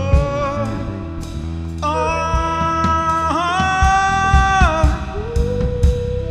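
Blues band music: a drum kit keeping time under a pitched melody line, with a long held, wavering note in the middle.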